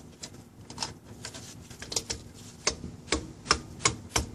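Repeated sharp metal-on-metal taps. They are faint and scattered at first, then from a little past halfway they come louder and evenly at about three a second: a bearing race being tapped into the Dana 35 differential housing with trial shims behind it.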